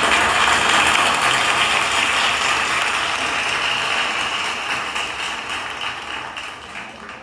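Audience applauding, loudest at first and dying away over the last couple of seconds.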